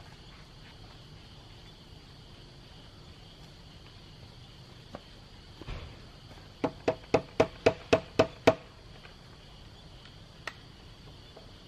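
Hammer blows: eight sharp strikes in quick succession, about four a second, each with a short ringing note, getting a little louder toward the end.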